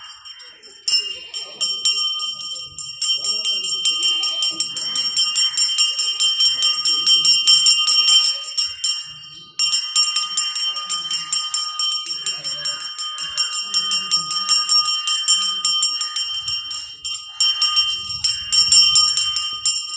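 A metal bell rung rapidly and continuously, its strokes running together into a steady clangour, breaking off for a moment about nine and a half seconds in before starting again.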